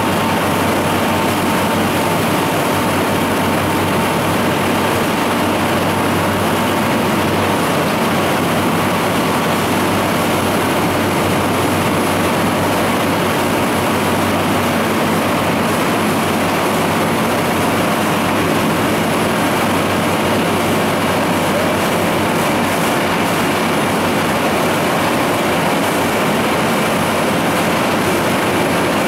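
Boat engine running steadily, with water rushing along the hull, heard from on board.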